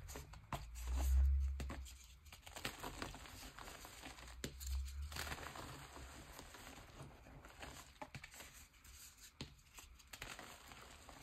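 Pressed gym chalk (a re-formed chalk block) and loose chalk powder being crunched and crumbled by hand: a continuous run of soft crackles and crunches. Two dull low thumps come about a second in and again near five seconds.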